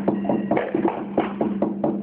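Music with a fast, even percussive beat of about six strikes a second, over a steady low held tone.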